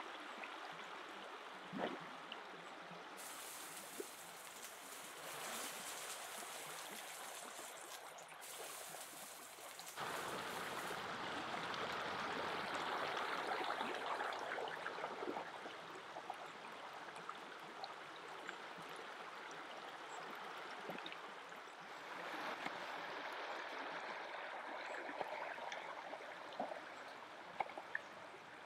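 Shallow river running over stones, a steady rush that changes abruptly a few times, with a few sharp taps near the end.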